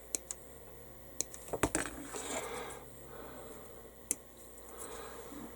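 Plastic model-kit sprues and parts being handled at a workbench: light rustling with a few sharp plastic clicks, a quick cluster of them about a second and a half in.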